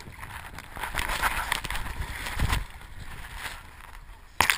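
Muffled, irregular rustling and knocking from a hand-held GoPro in its waterproof housing, its lens wet or under muddy water, with a sudden louder burst near the end.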